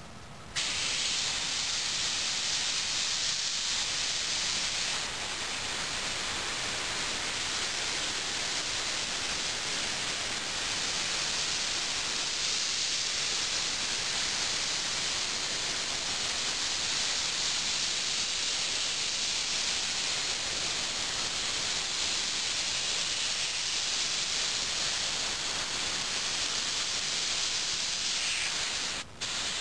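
Grex Tritium TS airbrush with a 0.5mm nozzle spraying thinned acrylic paint at 20 psi: a steady hiss of air and paint that starts about half a second in, with a brief break near the end.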